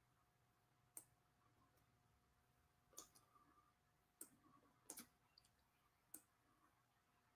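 A few faint, irregularly spaced computer mouse clicks, about six, over near silence.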